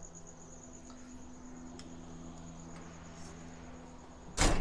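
A cricket chirping steadily in a high, evenly pulsing tone over a low, steady hum. Near the end there is a sudden loud burst of rustling and knocking.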